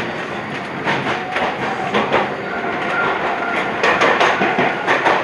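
Iyo Railway 3000 series electric train running, heard from on board: a steady running noise with repeated clicks of the wheels over rail joints, and a thin steady whine from about halfway in.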